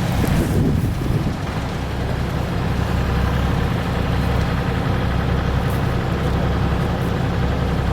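Engine idling steadily, a low, even drone.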